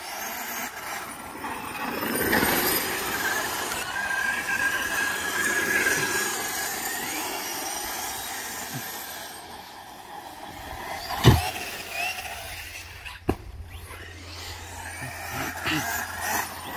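Large-scale electric RC monster truck, a Losi 5ive-T with a Lehner brushless motor on 12S, accelerating away across sand: a high motor and drivetrain whine that is loudest in the first few seconds and fades as the truck drives off. A sharp knock comes about eleven seconds in, and a second one about two seconds later.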